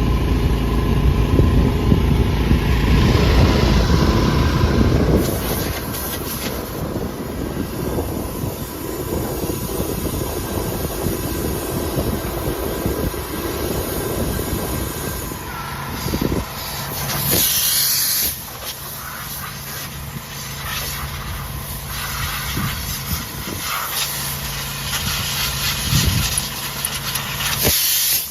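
Machinery running with a steady hiss, heaviest and most rumbling in the first few seconds, with brief louder rushes of hissing air about two-thirds of the way through and again near the end.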